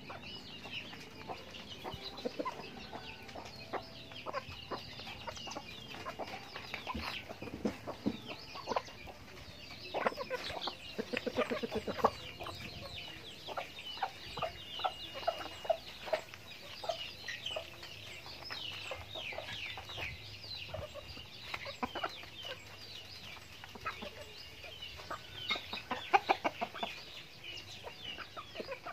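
Backyard chickens clucking as they feed, with many short calls throughout and scattered sharp taps.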